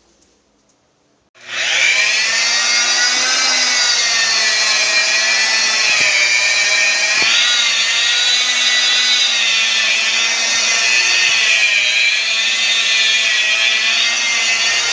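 Handheld electric power tool switched on about a second and a half in, then running steadily at speed with a high motor whine that wavers slightly in pitch.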